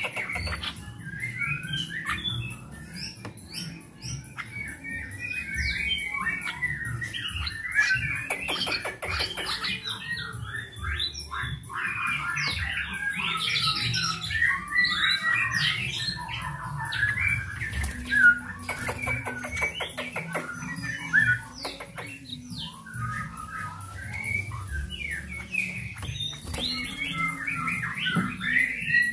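Three-week-old straw-headed bulbul chicks chirping and squawking, many short calls in quick succession, as they beg while being hand-fed.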